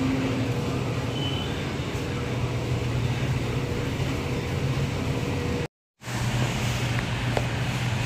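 Steady low hum of a supermarket's refrigerated display chillers and air conditioning, with a faint steady tone over it. The sound cuts out for a moment about six seconds in, then the hum carries on.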